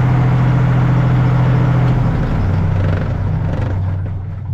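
Skid steer engine running steadily, its pitch dropping to a lower speed about two seconds in, growing somewhat quieter toward the end.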